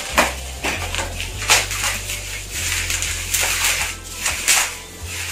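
Plastic bubble wrap crinkling and crackling unevenly as it is slit with a knife and pulled off a cardboard box by hand, over a steady low hum.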